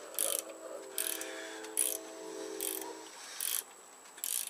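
Ratchet wrench turning a gear puller's forcing screw, clicking in short bursts about every 0.8 seconds on each swing of the handle as the puller is tightened.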